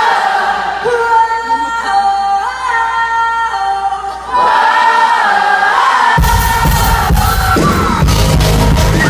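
Many voices singing held, choir-like chords that step from chord to chord. About six seconds in, the full rock band crashes in with drums and bass and plays on loudly.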